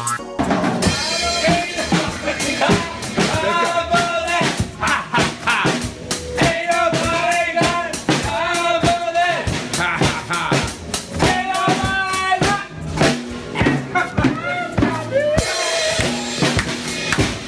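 A drum kit played live, with a rapid run of snare, bass drum and cymbal hits, and voices over it.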